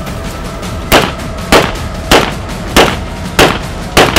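Six shots from a gas-operated semi-automatic shotgun fired in quick succession, about six-tenths of a second apart, beginning about a second in.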